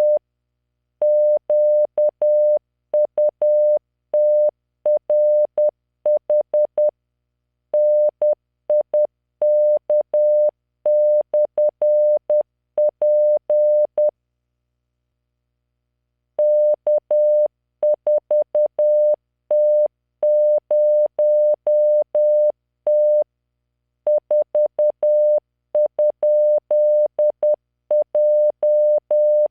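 Computer-generated Morse code practice tone at 10 words per minute: a single pure 600 Hz beep keyed into short and long elements, sending random five-character groups. There is a pause of about two seconds near the middle before the sending resumes.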